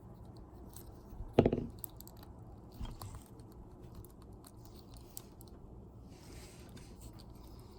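Small clicks and taps of a plastic Bakugan toy and a small screwdriver being handled while its screws are taken out, with a sharp knock about one and a half seconds in and a lighter one about three seconds in.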